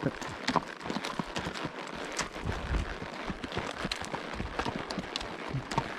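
Irregular crunching and clicking steps on dry ground, over a steady rushing noise.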